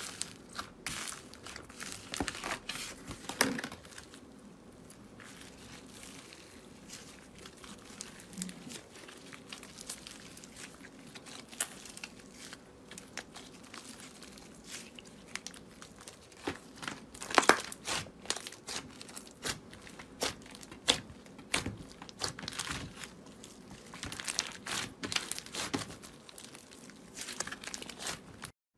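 Red foam-ball slime (floam) being pressed, stretched and squeezed by hand, giving dense, irregular crunching and crackling with sharp pops as the beads shift and the slime tears. The loudest snaps come about two-thirds of the way through.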